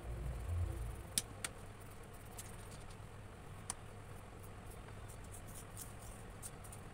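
Colored pencils working on paper on a table, with a few sharp clicks and taps, two close together about a second in and one more later. A steady low hum runs underneath.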